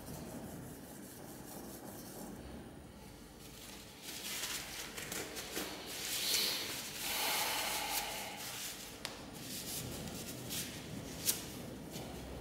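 Rubbing and scraping by hand, with sharp clicks, starting about four seconds in and loudest midway, then a single sharp click near the end.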